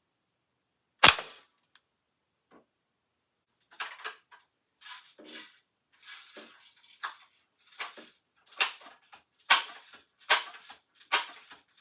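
A single air rifle shot, a sharp crack about a second in. Then a run of short, sharp noises, roughly one a second, getting louder toward the end.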